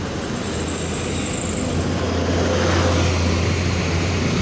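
A bus engine runs with a steady low drone and tyre and road noise, growing louder as it comes closer. No horn sounds.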